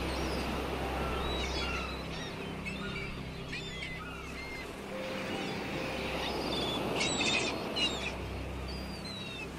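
Seagulls calling, many short cries, over the steady wash of sea surf, with sustained music notes underneath.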